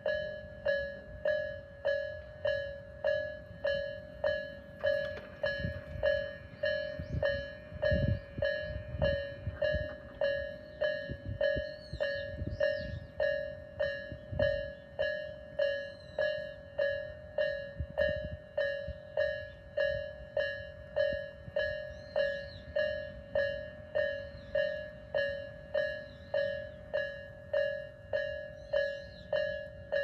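Japanese level-crossing warning bell of the slow 'Nikko/Isesaki type' used on the Tobu lines: an electronic two-tone ding repeating evenly about three times every two seconds, a sound called eerie.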